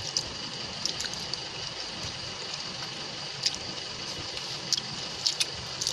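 Steady background hiss with scattered small clicks and smacks from people eating with their hands and chewing.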